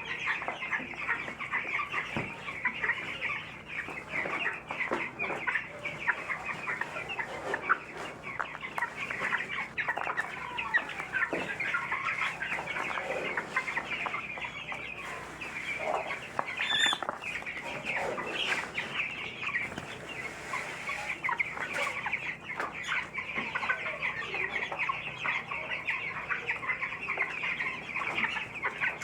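A flock of young broiler chicks in brooding, many overlapping high peeps and cheeps going on continuously.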